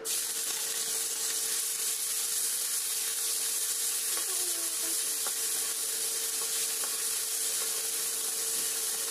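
Meat cubes hitting hot oil in a wok and sizzling, the hiss starting suddenly as the meat goes in and holding steady while it is stirred with a spatula.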